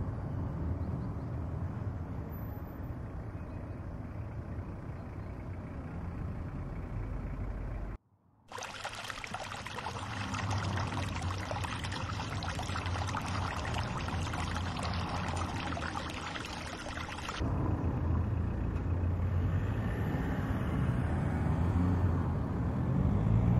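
Outdoor town ambience across three shots. First a low steady hum of distant traffic, then, after a brief dropout about eight seconds in, the steady splashing hiss of a pond's spray fountain for about nine seconds. Then a low traffic rumble again, growing louder near the end.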